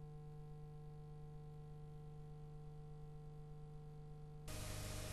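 Faint, steady electrical hum made of several held tones with a low buzz under them. Near the end a soft hiss comes up.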